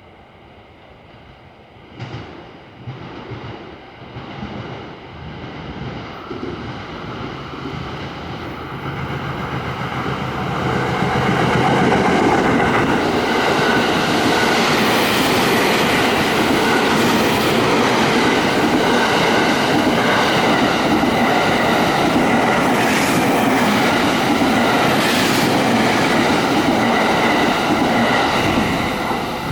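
The Sunrise Seto/Izumo overnight sleeper, a 285-series electric train, running past on the rails. Its sound builds over about ten seconds, holds loud and steady, then drops away near the end.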